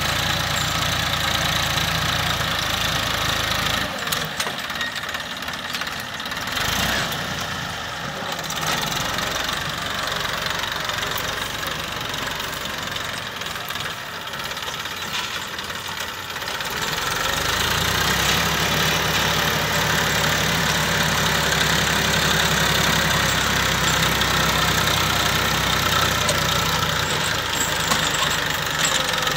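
Massey Ferguson 1035 DI tractor's three-cylinder diesel engine running steadily under load while pulling a tined cultivator through ploughed soil. Its low throb is fainter in the middle and louder again from a little past halfway.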